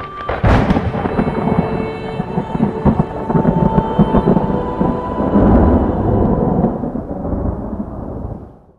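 Thunder sound effect in a logo sting: a sharp crack about half a second in, then a long rumble that fades out near the end, with a few held musical tones underneath.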